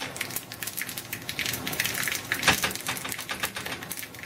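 Mustard seeds spluttering in hot coconut oil in a small tempering pan with green and dried red chillies frying: a dense run of quick crackles and pops, with one sharper pop about two and a half seconds in.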